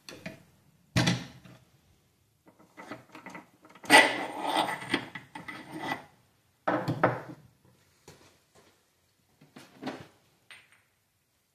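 Hand tools knocking, clinking and scraping on a T5 manual transmission's case and gear parts during teardown, in irregular bursts with short pauses between. The longest and loudest stretch is a clatter of metal about four seconds in that lasts around two seconds.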